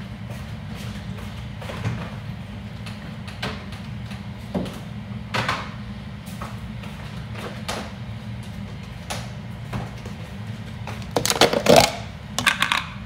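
Scattered light knocks and clicks of someone moving about a kitchen fetching things, over a steady low hum. About eleven seconds in there is a louder burst of rattling and rustling handling, then a shorter one just before the end.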